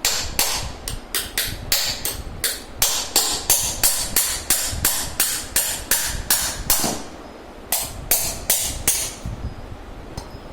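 Hammer blows on a fan's ball bearing: an even run of sharp taps about three a second for some seven seconds, a short pause, then a few more quick taps.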